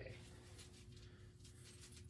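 Near silence: room tone with a faint steady hum and a few faint small clicks and rustles.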